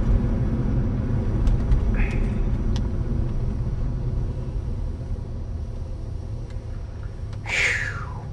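Low road and engine rumble heard from inside a moving car's cabin, fading as the car slows. Near the end there is a brief squeal falling in pitch.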